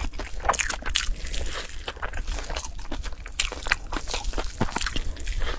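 Close-up crunching of a hard, crunchy food being bitten and chewed, with dense, irregular sharp crackles.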